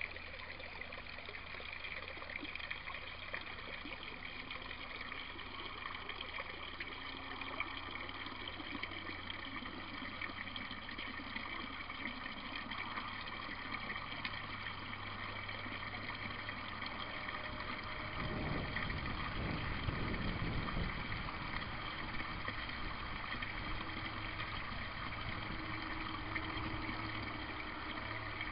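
Water from a PVC U-siphon outlet pipe pouring and splashing into a tub of water, steady, as the siphon, triggered by a 90-degree elbow, draws water down. A louder low rumble swells for a few seconds about two-thirds of the way through.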